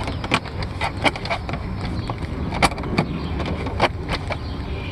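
Irregular light clicks and knocks from hands working parts at the truck's speaker mount, over a steady low rumble.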